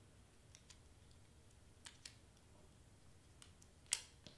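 Near silence broken by a few small clicks and taps from handling craft pieces on a cutting mat: two faint ones about two seconds in and one sharper click near the end.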